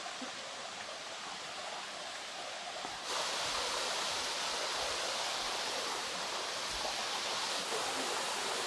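Rushing water of a river and waterfall, a steady noisy rush that suddenly becomes louder and brighter about three seconds in.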